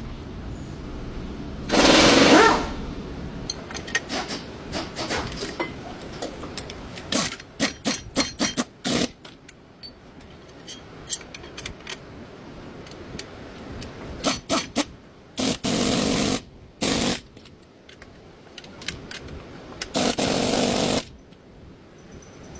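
Tool work on a vehicle's front suspension: several short bursts of a rattling power tool, each about a second long, among scattered metallic clicks and knocks.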